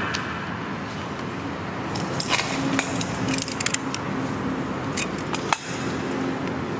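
Light clicks and taps of hands handling PVC skirting board against the wall, a cluster about two seconds in and a sharper click past the five-second mark, over steady background noise.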